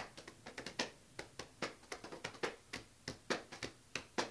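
Hambone body percussion: hands slapping the thighs and chest in a quick, even rhythm of about five slaps a second.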